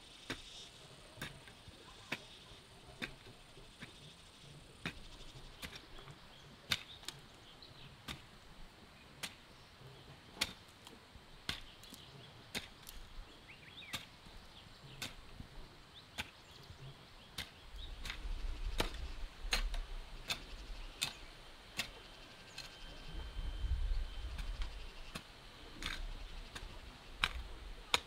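A hand hoe chopping into loose, freshly turned soil, one sharp strike about every second. A low rumble comes in over the second half.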